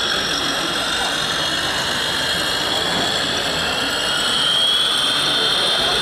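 Electric drive motor and gearbox of a radio-controlled scale army truck whining steadily as it drives, its pitch creeping up near the end.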